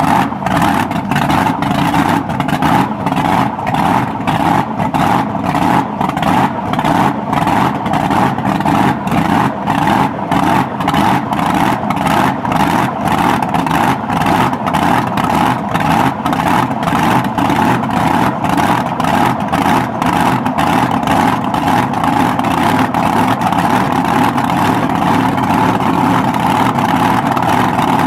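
Supercharged, nitro-burning V8 of a cackle car running loud at a lumpy, pulsing idle of about three beats a second.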